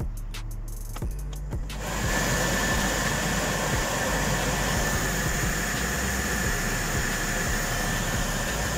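Cabin heater blower fan of a Skoda Felicia II switched on about two seconds in after a few faint clicks, then running steadily with a rush of air and a thin high whine.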